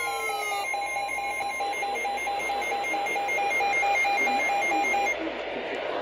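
Weather alert radios sounding their warning alarms: rapid pulsing electronic beeps, with falling tones fading out in the first second. The beeping stops about five seconds in, leaving radio hiss.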